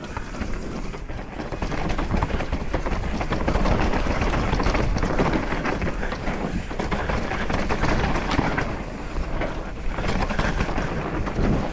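Trek Slash full-suspension mountain bike riding fast down a rough dirt trail: continuous tyre noise with a dense clatter and rattle from the bike over rocks and roots, building up over the first couple of seconds.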